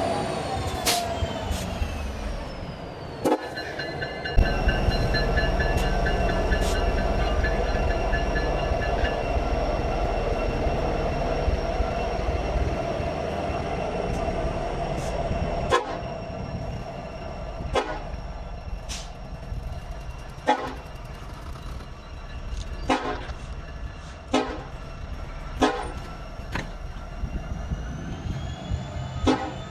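Freight train working slowly through a rail yard while switching: a steady diesel locomotive rumble under a high, steady squeal. From about halfway on come a series of sharp clanks and knocks from the moving cars.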